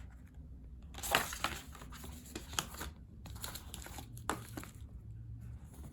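Crinkling and rustling of album packaging and plastic sleeves being handled, in irregular bursts, busiest in the first half and again past the middle.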